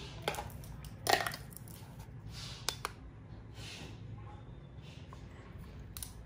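Hands handling 18650 battery cells and a battery tester: a few small clicks and knocks, the loudest about a second in, and brief rustles, over a steady low hum.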